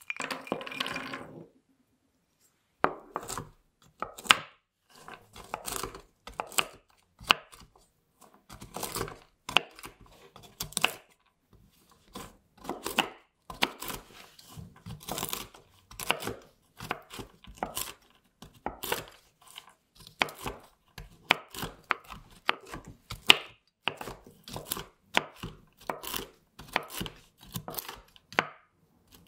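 Walnuts tipped from a small bowl onto a wooden cutting board with a brief rattle. A knife then chops them on the board in repeated, unevenly spaced strokes.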